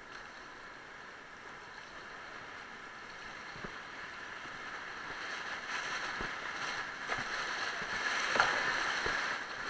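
Whitewater rapid rushing around a kayak, growing steadily louder as the boat runs into the rough water, with a few small splashes and knocks.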